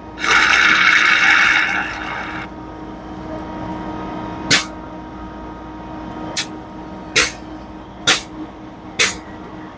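Hiss of trapped air bled from an FBD Slurpee machine barrel through its relief valve for about two seconds, which lets the barrel keep filling with product. Then several sharp clicks follow over a steady machine hum.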